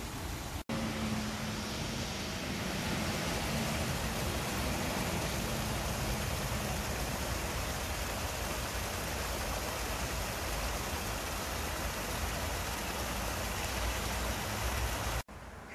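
Steady hiss of falling rain and running stream water, with a low rumble of distant traffic underneath.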